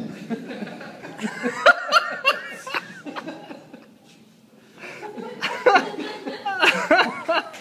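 Audience laughing at a punchline, in two waves with a quieter lull between them.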